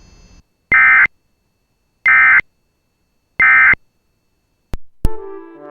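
Emergency Alert System end-of-message signal: three short, loud, buzzy digital data bursts about 1.3 s apart, marking the end of the alert. Near the end come two sharp clicks, and music starts.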